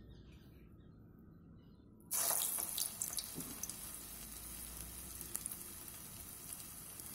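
A lauki (bottle gourd) kofta dropped into hot oil and deep-frying: about two seconds in, a steady sizzling hiss with small crackles starts suddenly.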